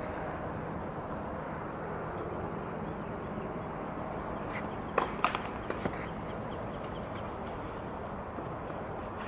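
A quick run of about five sharp tennis-ball impacts, racket strikes and bounces on a hard court, about five seconds in, the first the loudest, over a steady outdoor background hum.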